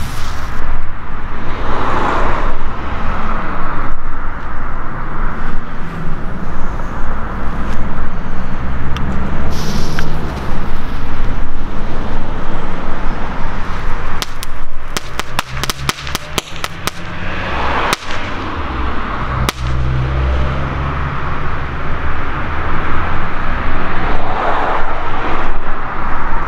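Small category 1 ground fireworks going off: short hissing spurts and, about halfway through, a quick run of a dozen or so sharp crackles followed by two single cracks, over a steady low rumble.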